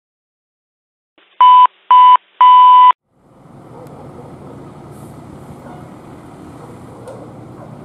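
Three loud electronic beeps, two short and one longer, all at the same pitch. About three seconds in, the steady low rumble of a fire truck's engine begins as the rig pulls out of the station.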